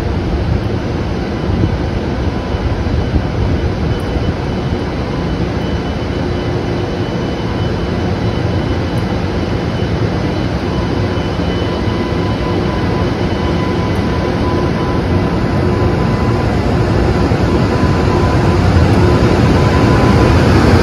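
EH200 electric locomotive hauling a train slowly into a station platform: a steady rumble that grows louder as it draws near.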